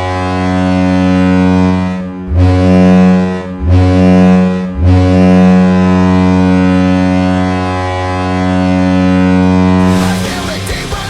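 The Cleveland Monsters' arena goal horn blowing, a loud low-pitched blast with three brief breaks about 2, 3.5 and 5 seconds in before it holds on. Rock music comes in near the end as the goal song starts.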